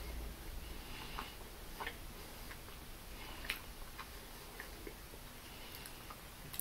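Faint chewing of a mocha macaron, picked up by a clip-on microphone: soft, sticky mouth clicks now and then.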